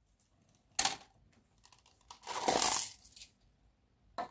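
A clear plastic cup handled and set down among loose quarters: a short scraping rustle about a second in, a longer one of about a second starting around two seconds in, and a brief click near the end.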